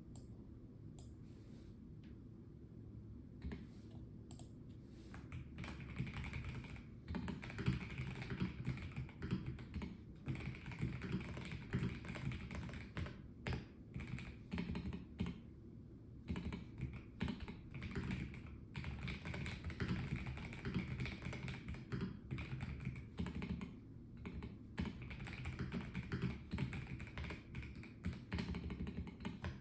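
Typing on a Melgeek Mojo84 mechanical keyboard with a plastic case: a few scattered keystrokes at first, then steady runs of quick typing broken by short pauses.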